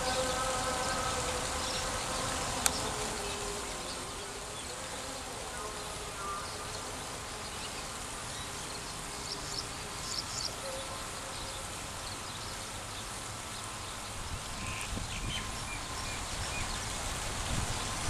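A steady buzzing hum that fades after the first few seconds, over a background of outdoor noise. A single sharp click comes a few seconds in, and a few faint high chirps come near the middle.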